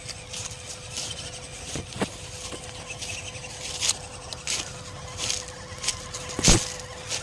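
1/12-scale RC scale crawlers (MN D99 Land Rover and MN78 Cherokee) driving over dry leaves, twigs and stones: scattered crackles and clicks, with one louder knock about six and a half seconds in, over a faint steady hum.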